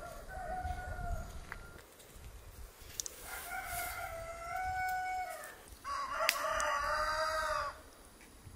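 Rooster crowing three times: a shorter crow at the start, then two long drawn-out crows one after the other in the second half, the last the loudest.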